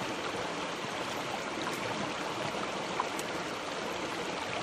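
Mountain stream running steadily over rocks, with a faint tick about three seconds in.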